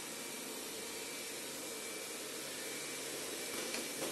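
Roborock S6 MaxV robot vacuum running steadily, a whooshing hiss with a thin high whine. Near the end come a couple of light knocks as it reaches the 2 cm threshold onto the laminate.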